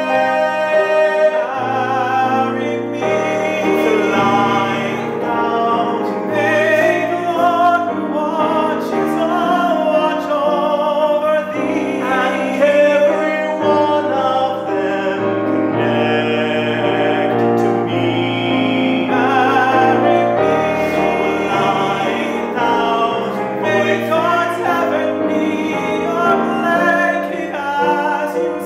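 Two tenors singing a musical-theatre duet in turn, accompanied by a grand piano.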